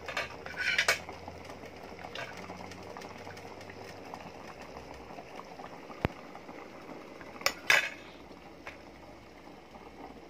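Utensils knocking and clinking against a cooking pot and a ceramic plate as a piece of chicken is served out of a simmering stew. There are a few knocks near the start, a sharp tap about six seconds in, and two louder clinks shortly after.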